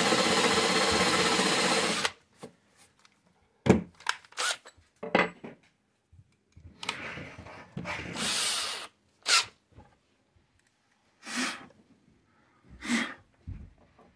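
Cordless drill running at speed for about two seconds and then stopping suddenly, its twist bit boring an angled pilot pocket into wood for a screw. After that come scattered knocks and several shorter bursts of sound.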